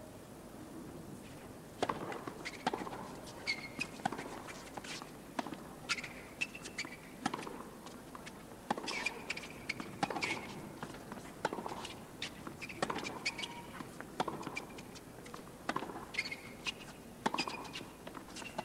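Tennis rally on a hard court: a ball struck back and forth by rackets and bouncing on the court, a string of sharp pops about half a second to a second apart. It starts about two seconds in.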